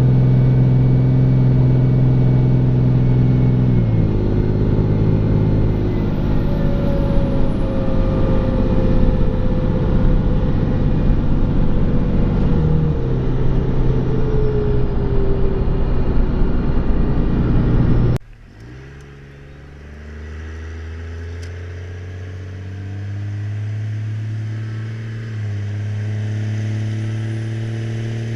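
Dodge pickup's Cummins inline-six turbo diesel running hard under load, its pitch shifting in steps. About eighteen seconds in the sound drops away suddenly, and the engine is then heard quieter, its pitch rising in steps.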